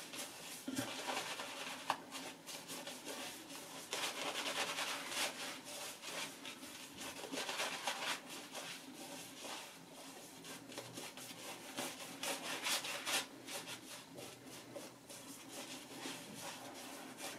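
Horsehair shaving brush scrubbing shaving-soap lather over a stubbled face: a continuous wet, bristly rubbing made of many quick strokes, louder in stretches.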